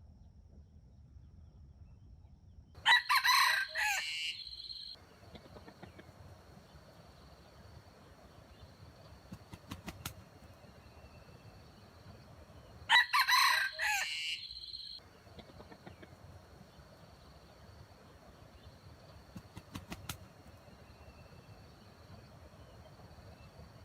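Wild junglefowl rooster crowing twice, about ten seconds apart, each crow about two seconds long.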